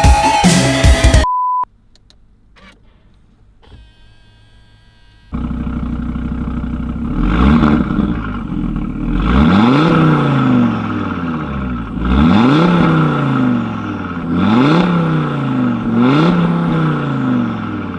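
The tail of electronic music and a short beep give way to a quiet gap. Then an Audi RS3's turbocharged five-cylinder engine, breathing through a BULL-X EGO-X aftermarket exhaust, idles and is revved in about five throttle blips, each rising and falling in pitch, two or three seconds apart.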